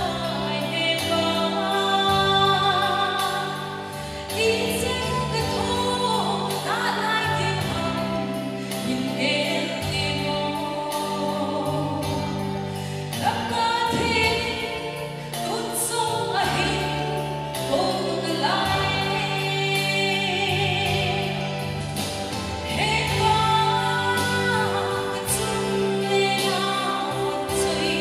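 A woman sings a Christian song into a handheld microphone over instrumental accompaniment with steady held bass notes.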